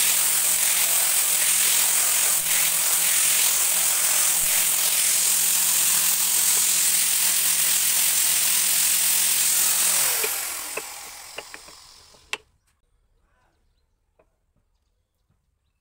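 Electric angle grinder with a sanding disc running steadily as it sands a hardwood block. About ten seconds in it is switched off and winds down over a couple of seconds. A single sharp knock follows, then a few faint taps of wood on wood.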